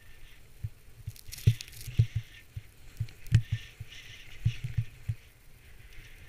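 Sliding fast through deep powder snow: a hiss of snow under the rider, rising and falling with the turns, over irregular low thumps and knocks of wind and bumps on a helmet-mounted camera.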